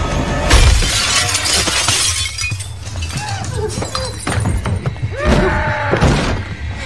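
Glass shattering: a loud crash about half a second in, the breaking glass going on for about a second and a half.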